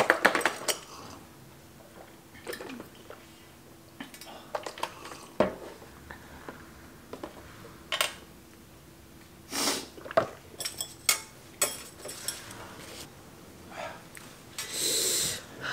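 Metal chopsticks clinking and knocking against a cooking pot while a cardboard milk carton is handled and drunk from, in scattered separate clicks and knocks. There are two longer noisy rushes, about ten seconds in and near the end.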